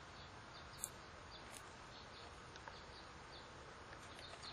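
Faint outdoor background with scattered short, high bird chirps, and one light click about a second in as the multimeter test leads are handled.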